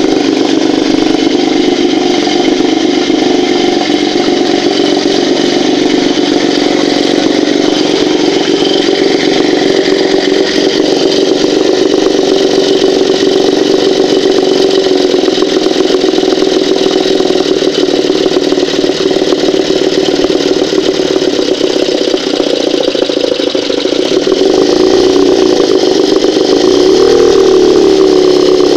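Moskva M two-stroke outboard motor running steadily, without knocking or ringing now that an ignition coil core no longer rubs on the flywheel. Near the end its speed rises and falls a few times.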